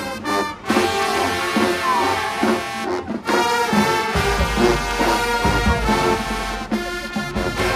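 Marching band brass playing a loud, full-ensemble passage of a field show, with short breaks between phrases near the start and about three seconds in. A low rumble joins about halfway through.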